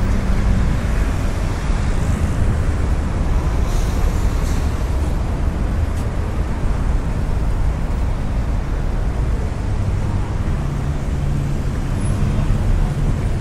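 City traffic noise: a steady low rumble of road vehicles. A deeper engine hum grows stronger near the end.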